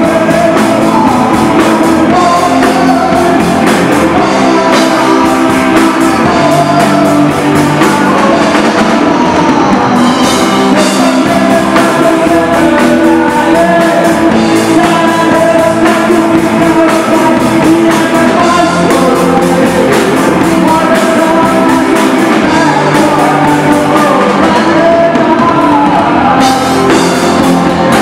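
Live rock band playing loudly and without a break: distorted electric guitars, keyboard and drum kit, with a singer on top.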